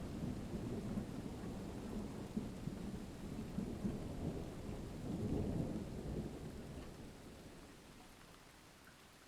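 Thunder rumbling low with rain, swelling to a peak about five seconds in and then fading away over the last few seconds.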